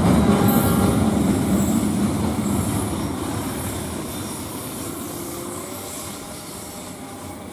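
Freight train running past on the rails and receding, the noise of its wheels and wagons fading steadily away.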